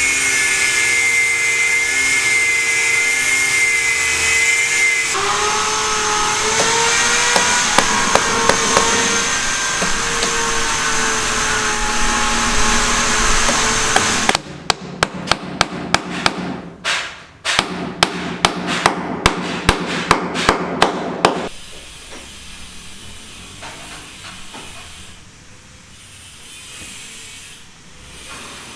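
Building-site work: a steady whine of several wavering tones for the first half, then hammer blows striking about twice a second for several seconds, after which it goes quieter.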